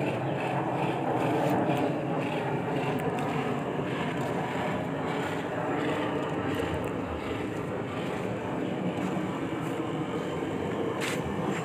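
Handheld electric heat gun running steadily, its fan motor blowing hot air with a constant hum, while window tint film is heat-shrunk onto a car's rear windshield.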